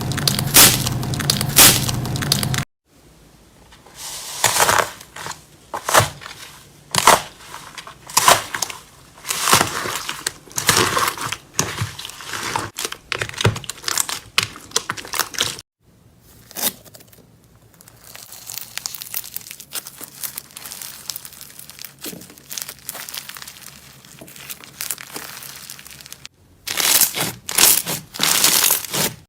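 Slime being squeezed and worked by hand, making dense crisp crackling, clicking and popping, in several short clips that change abruptly.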